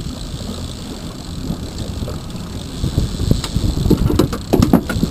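Steady low rumble of the trolling boat's motor, with wind on the microphone. From about three seconds in, a run of irregular knocks and thumps comes through, louder than the rumble.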